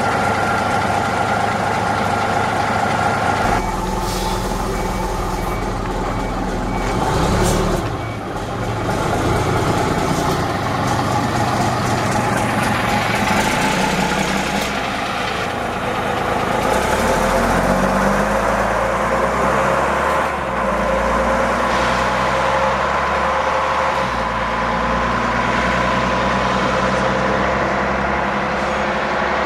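Heavy diesel bus engines running as buses move off, the engine note rising and falling as they accelerate.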